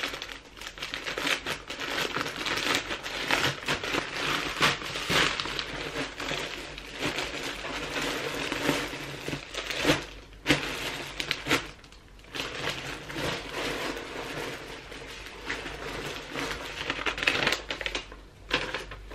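Plastic packaging crinkling and rustling as a clothing parcel is torn open and unwrapped by hand, with a couple of brief pauses about halfway through.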